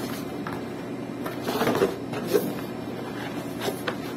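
Cardboard box being handled and its flaps pulled open: rustling and scraping of cardboard with a few light knocks, loudest about a second and a half in.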